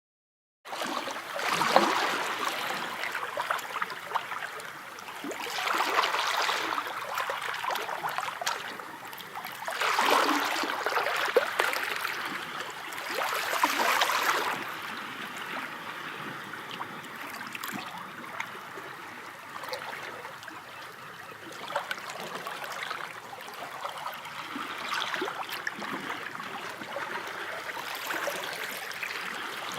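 Sea waves washing in and drawing back, swelling every few seconds in the first half, then settling into a lower, steadier wash with smaller surges.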